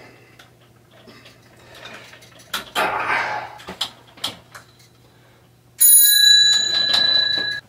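A short hiss of aerosol lubricant sprayed at the handlebar shifter, with small clicks, then about six seconds in a bicycle bell rings loudly for nearly two seconds and cuts off sharply.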